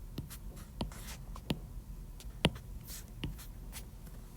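Pen writing: short scratchy strokes with a few sharper taps as the pen meets the writing surface.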